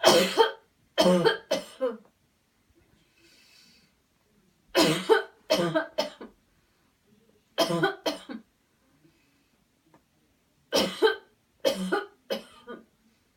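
A person coughing deliberately and forcefully as a cough-clearing exercise after deep inhalations, in four bouts of two to four coughs each, roughly three seconds apart, with a faint breath drawn between bouts.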